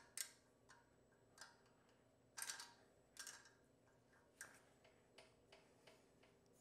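Faint, irregular clicks and taps of a 10 mm wrench and a straight screwdriver on a valve adjuster, as the locknut is loosened to open up a too-tight intake valve clearance.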